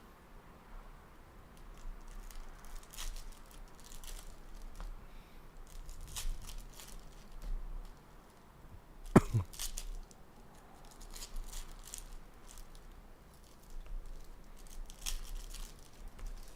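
Trading card pack wrappers being torn open and crinkled, with cards handled, in scattered bursts of rustling and crackling. One louder, sharp sound about nine seconds in drops quickly in pitch.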